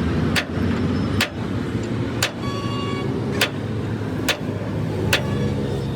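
Sharp metal-on-metal strikes, about one a second, some leaving a brief ring, over the steady low running of an engine.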